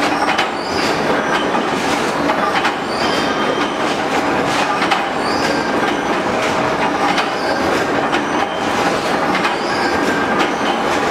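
Automatic billet feeder of an induction forging line running: metal billets clattering and knocking against each other and the steel hopper, over a steady machine din, with a short high squeal every couple of seconds.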